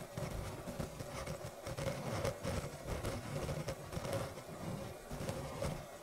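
Water heating toward the boil around a lit 12 V bulb submerged in a glass, with an irregular crackling and ticking of bubbles forming and collapsing on the hot glass. A faint steady hum runs underneath.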